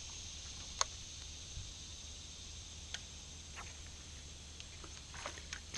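Cicadas buzzing steadily in the trees, with a few sharp clicks over it, the loudest about a second in.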